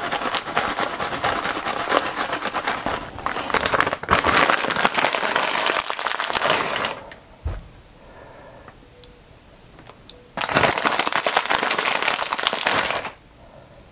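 Crinkling of a plastic bag of shredded cheese as it is shaken out, in two long spells with a quieter gap of about three seconds between them.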